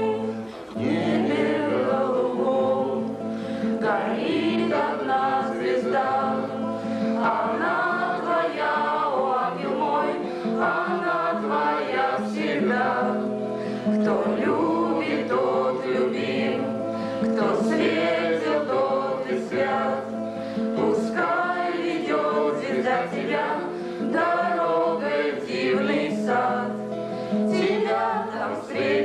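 A small group of voices singing a song together, accompanied by strummed acoustic guitar.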